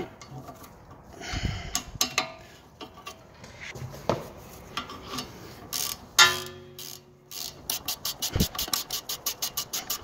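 Ratchet wrench clicking as brake caliper bolts are tightened. Scattered metallic clicks and knocks come first, then an even run of about five clicks a second near the end.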